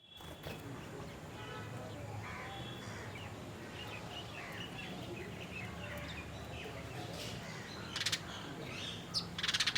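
A chorus of mixed wild birds chirping and trilling over a steady low background hum, with two loud harsh calls near the end, crow caws.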